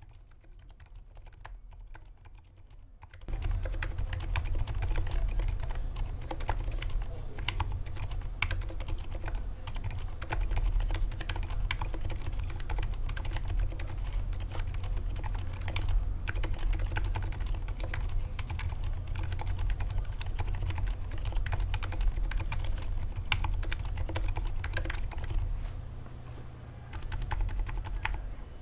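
Continuous typing on a Drop Ctrl high-profile mechanical keyboard fitted with lubed Durock Silent Dolphin silent linear switches, lubed and clipped stabilizers and a foam-filled case. The keystrokes are dampened and muted. The typing is softer for about the first three seconds, then gets louder and denser.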